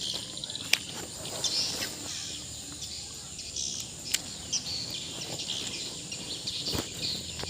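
Outdoor ambience of a rural waterside, with faint bird chirps and a few sharp clicks, the loudest under a second in and about four seconds in.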